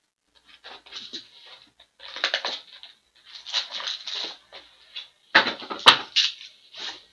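Trading-card packaging being handled: rustling and crinkling of paper, plastic and foil in irregular bursts, the loudest about five and a half seconds in with a sharp snap.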